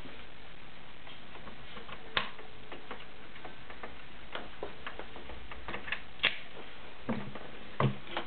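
Sharp clicks and knocks of metal parts being handled on a Kenmore 1757 all-metal sewing machine as its metal stitch cam is put back in place: a loud click about two seconds in, scattered lighter ticks, another loud click about six seconds in and a quick double knock near the end.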